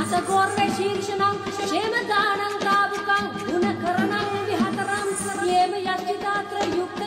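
Female voices singing a Sri Lankan folk-style song over a steady low drone.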